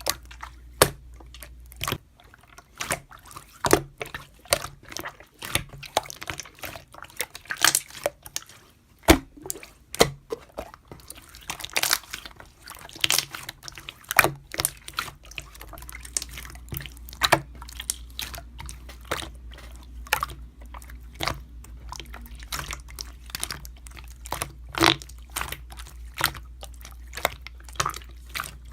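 Slime being pressed and stretched by hand, giving many irregular wet clicks and pops.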